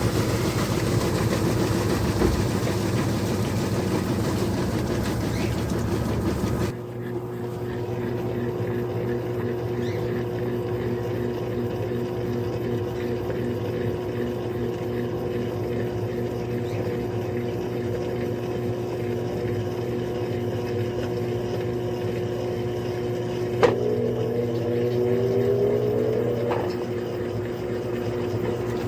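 Electrolux LTD13 top-loading washing machine running with a steady hum. A louder, noisier sound cuts off abruptly about seven seconds in. About 24 seconds in there is a sharp click followed by a brief gliding tone, and another click comes near the end.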